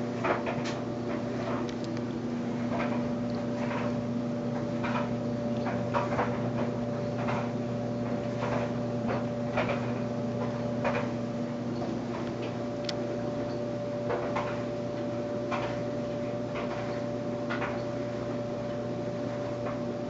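LG WT4801CW high-efficiency top-load washing machine running a cycle: a steady motor hum with short swishes or clicks recurring about every second.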